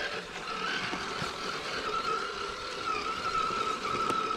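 Traxxas TRX4 Sport RC crawler's electric motor and gear drivetrain whining as it drives along the trail. The steady whine wavers slightly in pitch and is clearest in the second half.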